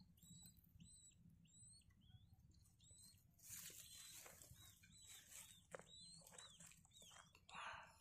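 Newly hatched quail chicks peeping: short, high chirps repeated two to three times a second. Dry grass rustles briefly about halfway through.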